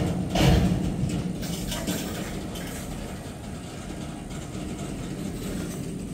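Freight cars of a slow-moving manifest train rolling past: a steady rumble and rattle of wheels on rail, with loud metallic clanks at the start and about half a second in.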